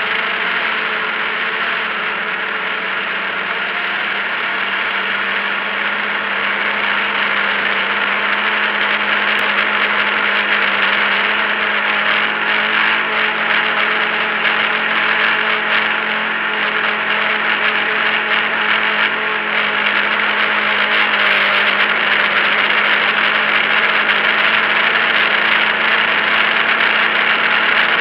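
Multicopter drone's electric motors and propellers whirring steadily, heard close from the onboard camera: a constant hum over a broad rushing noise, growing a little louder about a third of the way in.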